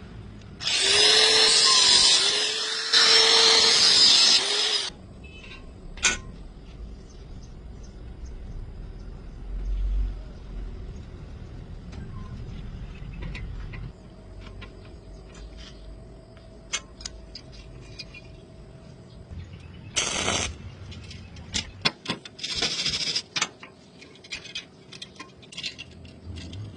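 A power tool running loudly for about four seconds, its motor pitch dipping and recovering as it works. It comes back in short bursts about 20 and 23 seconds in, with scattered clicks and knocks between.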